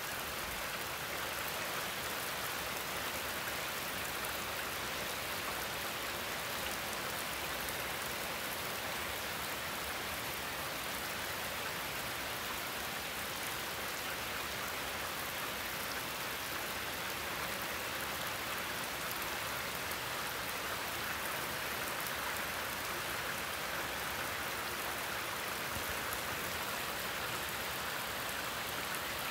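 Heavy hurricane rain pouring down on a lawn and trees: a steady, even hiss without a break.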